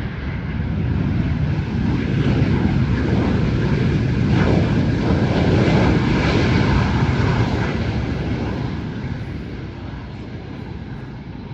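An airliner passing close by, its engine noise a deep rumble with a steady whine above it. The noise builds over the first couple of seconds, holds loud through the middle, and fades away toward the end.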